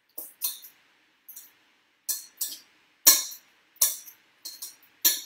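Fork mashing avocado in a stainless steel bowl: irregular metallic clinks and scrapes of the fork against the bowl, several a second, the loudest about three seconds in.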